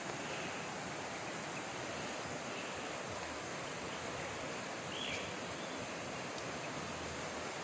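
Steady, even rushing outdoor noise with a few faint high chirps.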